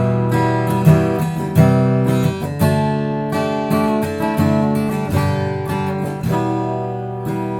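Background music: strummed acoustic guitar with a steady rhythm, about one strum every three-quarters of a second.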